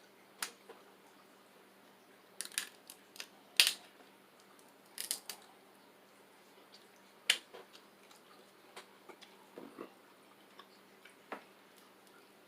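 Scattered sharp cracks and snaps of crab-leg shells being broken open while eating, with a single loudest crack about three and a half seconds in.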